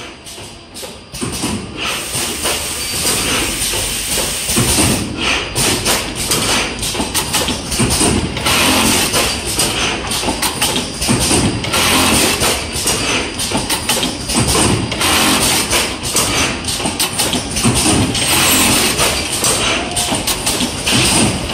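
Brother AML-430H automatic multiple-label sewing machine running: a dense, continuous clatter of rapid taps and knocks from the sewing head and label-feed mechanism, rising to full level within the first second or two.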